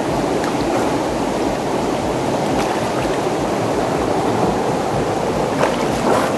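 Fast river current rushing below a small weir, a steady churning wash of water. Near the end come a few splashes as a snorkeling spearfisher swims through it.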